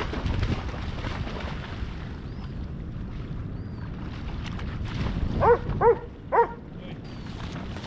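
Doberman splashing through shallow water with wind on the microphone, then three short loud barks about half a second apart past the middle.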